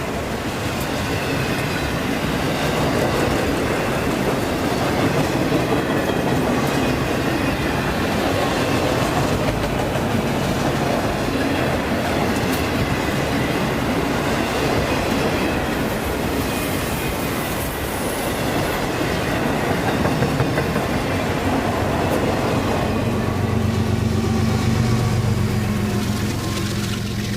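A train rolling past, its wheels clattering steadily over the rails; a low engine drone grows louder about three quarters of the way through.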